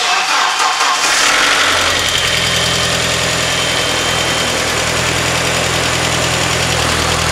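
VW/Audi 1.8L turbo four-cylinder engine starting for the first time after a cylinder head replacement. It cranks and catches within about a second, then settles into a steady, smooth idle with little clacking from the lifters or cam chain tensioner.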